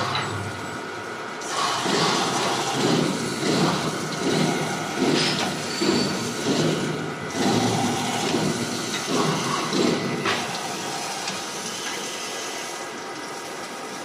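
Rotary glass bottle washing machine running, its water jets spraying into inverted glass bottles, with a swell of splashing about every eight-tenths of a second; after about ten seconds the swells stop and a steadier machine noise remains.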